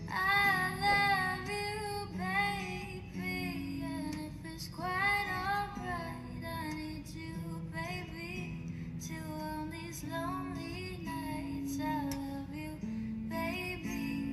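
Background music: a song with a high singing voice, female or child-like, over held low bass notes.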